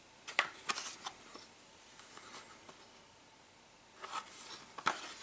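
Mego plastic toy car being handled and turned over in the hands: light plastic clicks and rustles of fingers on the body. There are a few in the first second and a second cluster about four seconds in.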